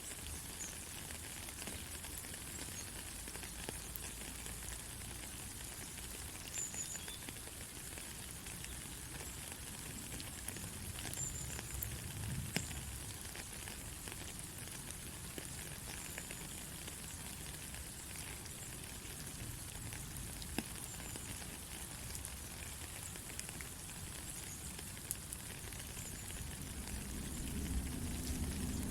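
Steady rain falling: an even hiss with scattered sharp drop ticks. A low rumble grows near the end.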